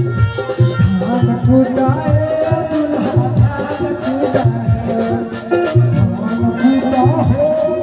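Indian folk music: hand drums beating a steady rhythm under a wavering melody line.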